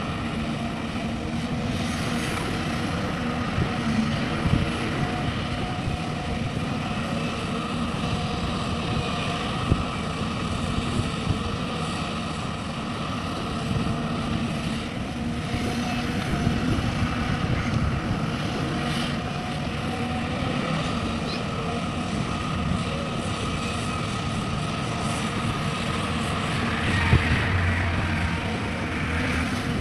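Diesel engine of a working hydraulic excavator running steadily, with a few brief knocks.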